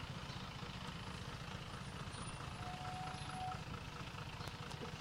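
Motor vehicle engine running nearby, a steady low rumble, with a faint short tone about halfway through.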